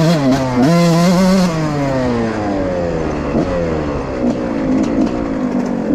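Suzuki RM 125 two-stroke motocross engine revved hard in two short bursts. Its pitch then falls steadily over the next few seconds.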